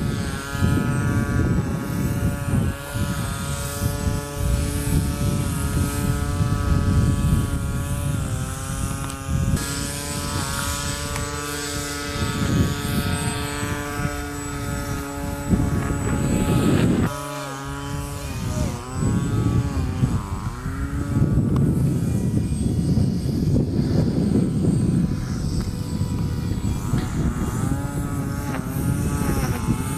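The pusher propeller and electric motor of a foam RC MiG-29 model jet buzz in flight, the whine rising and falling in pitch with throttle and passes. The whine drops off briefly a little past halfway. Heavy wind rumble sits on the microphone throughout.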